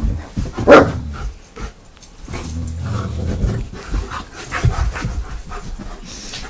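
Dogs playing rough at close range: panting and low play-growling, with one short loud noise about a second in.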